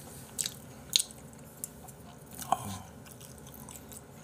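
A person chewing a mouthful of raw beef close to the microphone, with about four short wet smacks and clicks from the mouth, the loudest about a second in and two and a half seconds in.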